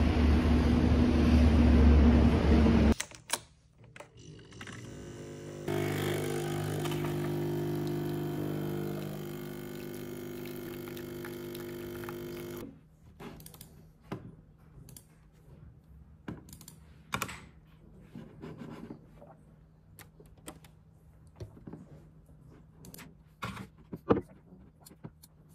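Wind rumbling on the microphone for about three seconds, then a capsule coffee machine's pump humming steadily for about seven seconds as it brews into a mug. After it stops, scattered clicks of typing on a mechanical keyboard, with one sharper knock near the end.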